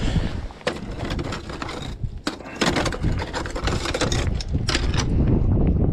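Scallop shells clattering and scraping together in a plastic bucket as a hand rummages through them, a run of irregular sharp clicks, over a low wind rumble on the microphone.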